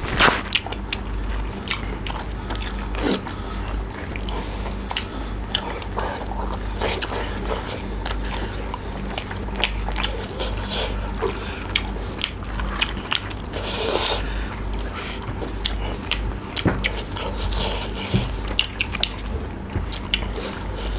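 Close-miked mukbang eating of spicy pork curry and rice: chewing and wet mouth smacks, heard as many short clicks throughout, with fingers mixing rice on a banana leaf, over a steady low hum.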